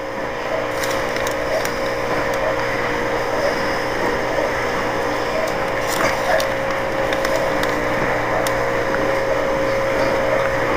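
Steady mechanical hum, like a kitchen fan, with one even mid-pitched tone, and light scattered ticks and rustles over it.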